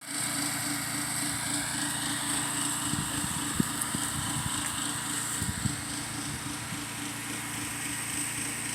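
Gas-powered pressure washer running steadily: a constant engine hum under a steady high hiss.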